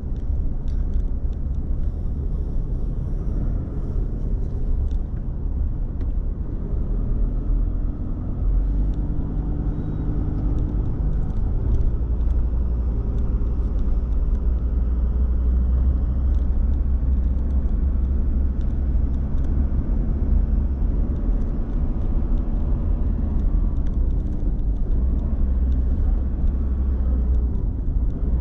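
Car driving on city streets: a steady low road and engine rumble, with the engine's hum rising and falling in pitch as the car speeds up and slows down.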